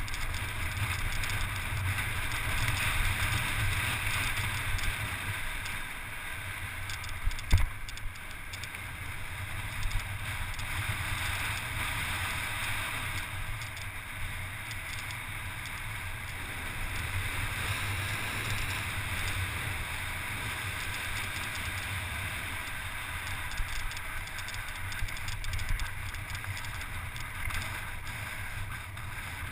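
Wind buffeting the camera's microphone and the rush of a mountain bike's tyres over loose volcanic gravel during a fast downhill run, with a brief cluster of sharp knocks about seven seconds in.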